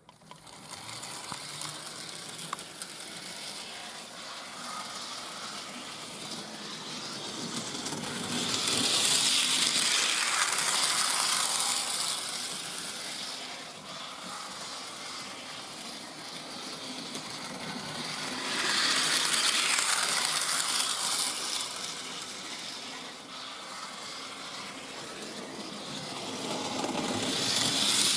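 Model LNER V3 tank locomotive running on its track, an electric motor whirring with gear and wheel rattle. It grows louder three times, about every nine seconds, as it passes close on a loop of track.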